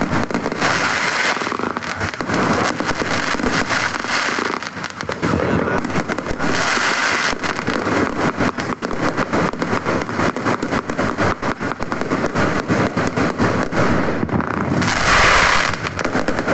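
Fireworks going off in rapid succession: a dense, unbroken crackle of pops and bangs, growing louder near the end.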